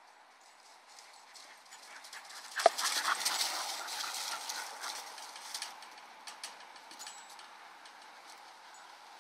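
Two dogs playing rough: scuffling, footfalls and panting. The noise starts with one sharp sound about three seconds in, is loudest for the next couple of seconds, then eases off.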